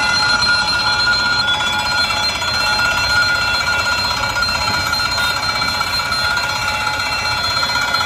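Railway level-crossing warning bell ringing steadily, the signal that a train is approaching, over a low rumble.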